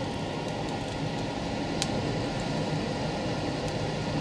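Breaded rainbow trout fillet pan-frying in a hot skillet: a steady sizzle with one small pop about two seconds in.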